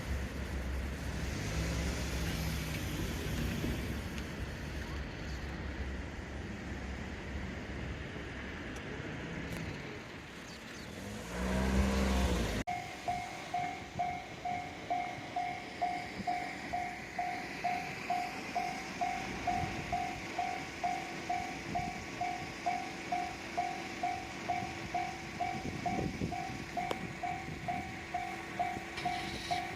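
A vehicle rumbles past close by, its engine note swelling to a loud peak before the sound cuts off abruptly about thirteen seconds in. Then a Japanese railway level-crossing warning bell rings steadily, about two dings a second.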